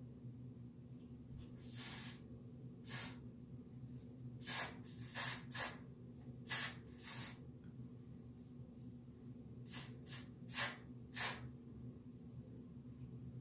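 Short spritzes from an aerosol can of Got2b Glued hair spray sprayed along the hairline: about ten brief hissing bursts at irregular intervals, some in quick pairs.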